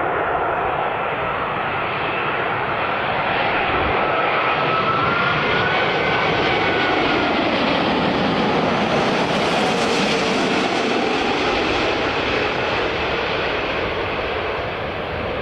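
Fixed-wing aircraft passing by with its engines running, a loud steady rush with a faint whining tone that drifts down in pitch; the hiss is brightest about ten seconds in.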